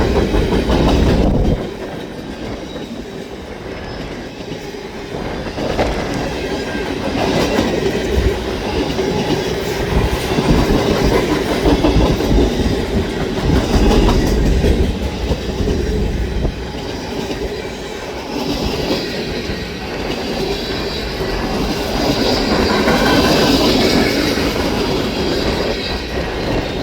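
Freight cars of a long CN manifest train rolling past, the wheels clacking over the track in an uneven, continuous rumble that swells and dips.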